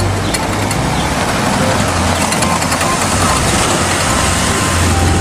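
Bus engine running steadily, a constant low hum under an even hiss of noise.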